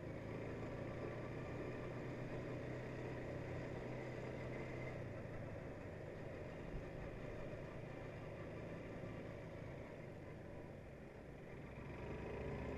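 Quad bike engine running as it rides along a road. The steady engine note fades about five seconds in, and the sound grows louder again near the end.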